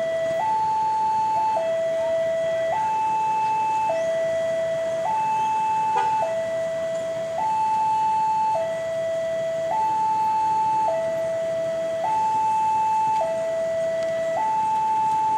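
Railway level-crossing warning alarm sounding a steady electronic two-tone signal, alternating high and low, each tone held just over a second: the crossing is closing for an approaching train.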